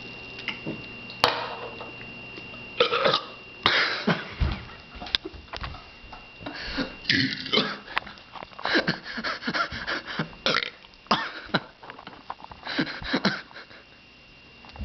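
A man belching at length: a long, broken-up run of loud, irregular burps from about a second in until shortly before the end.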